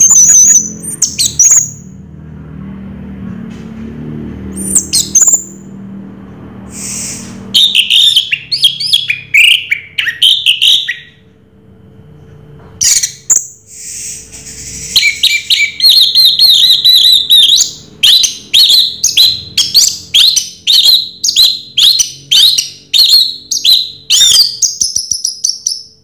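Orange-headed thrush singing: a few scattered phrases of whistles and trills, then from about halfway a fast, unbroken run of sharp repeated notes, about three a second.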